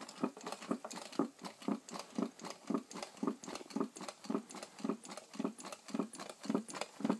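Tin-can Stirling engine running, its crank and displacer knocking rhythmically about twice a second, with lighter clicks in between.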